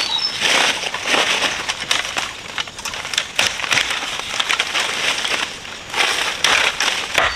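Dry brush and leaves crunching and rustling in repeated bursts as vegetation is cleared.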